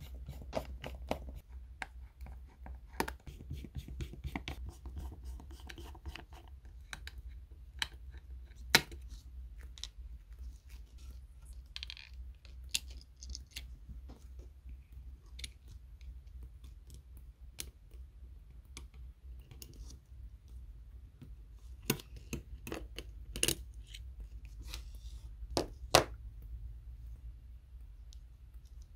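Small-tool handling sounds from an iPhone 13 disassembly: a precision screwdriver scraping and clicking on tiny screws, a nylon spudger prying under the logic board, and metal parts and screws tapped and set down on a hard surface. These come as scattered sharp clicks and taps, the loudest about nine seconds in and a cluster near the end, over a steady low hum.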